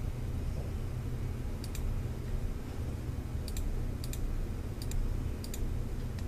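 Computer mouse button clicks, each a quick double tick of press and release, about six times over a steady low hum.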